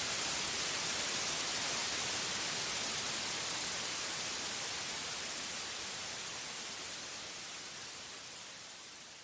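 Steady white noise, an even hiss strongest in the high end, slowly fading out over the last several seconds.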